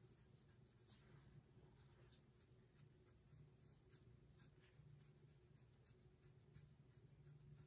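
Near silence, with faint, irregular soft scratchy strokes of a foam sponge brush working alcohol ink over a metal tray. A faint low hum lies beneath.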